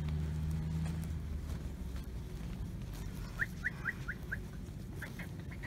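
A bird chirping: a quick run of about five short rising notes, then three more about a second later. A low steady hum fades out about a second in.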